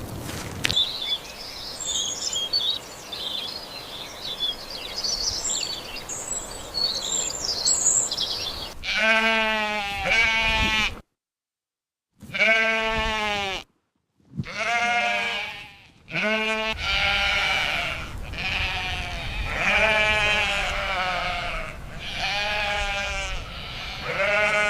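Sheep bleating repeatedly in long, wavering bleats from about nine seconds in, broken twice by abrupt cuts to silence. Before that there is only background hiss with high chirping.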